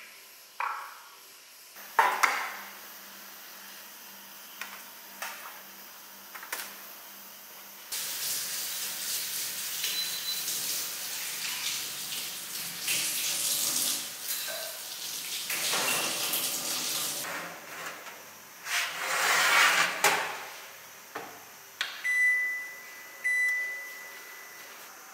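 Kitchen tap running in spurts into a sink, after a few knocks of bowls and utensils on the counter. Near the end, two short electronic beeps from an oven's control panel.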